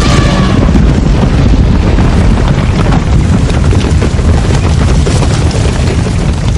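Animal stampede: a loud, continuous rumble of many heavy hooves pounding the ground.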